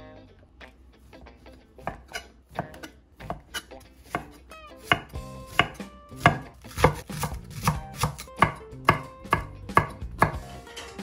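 Kitchen knife chopping onion and green onion on an end-grain wooden cutting board. The cuts are scattered at first, then settle into a steady beat of about two chops a second from about five seconds in.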